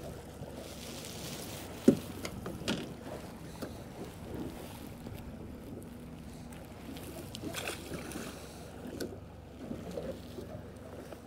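Steady wash of water and wind around a small drifting boat, with one sharp knock about two seconds in and a few lighter knocks and clicks after.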